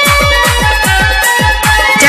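Nagpuri DJ-remix song music: a fast run of deep electronic drum hits that drop in pitch, about five a second, under a held high melody.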